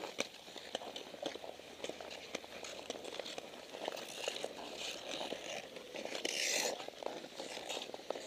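Ice skate blades gliding and scraping over natural ice: a continuous run of clicks and scratches from several skaters, with a louder hissing scrape about six and a half seconds in.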